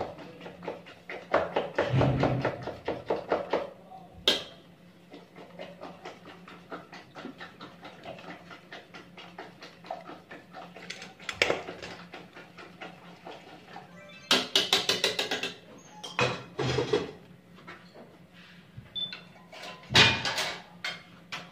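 A hand mixing flour, milk and water into batter in a plastic bowl, with wet squelching and slapping in short bursts of a second or so.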